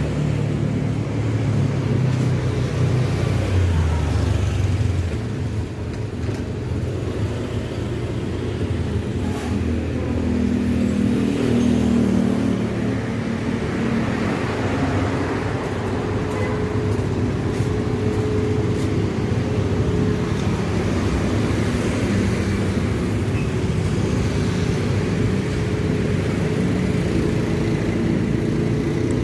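Street traffic: engines of passing road vehicles running continuously, a steady low engine sound.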